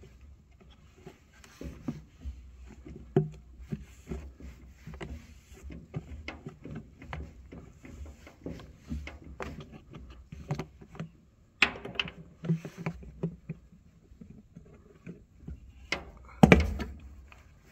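Hands working the lid of a plastic 5-gallon pail of hydraulic fluid, opening it to pour. Scattered clicks, snaps and scrapes of plastic, with a louder knock near the end.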